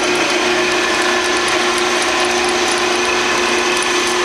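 Grizzly G0602 10x22 metal lathe running steadily, its motor and gear train giving a constant hum and whir, during a slow parting-off cut through the workpiece.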